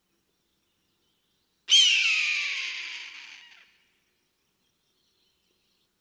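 A single eagle scream about two seconds in: a loud cry that starts sharply, falls in pitch and fades out over about two seconds.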